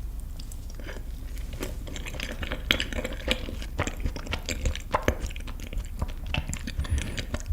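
Close-miked eating sounds: crisp crunching bites and chewing, with many sharp crackles starting about a second in.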